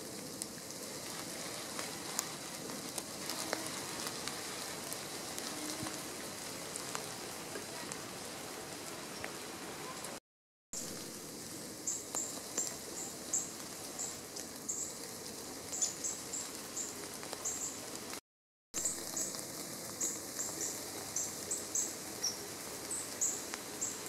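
Steady rain pattering on leaves in woodland. In the second half, short, very high chirps repeat irregularly over the rain. The sound cuts out completely twice, briefly each time.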